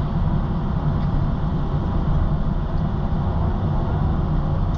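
Excavator engine running steadily with a low hum.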